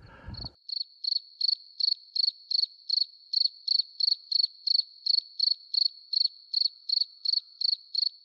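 A cricket chirping steadily, nearly three short, high chirps a second, very even in rhythm, starting about half a second in.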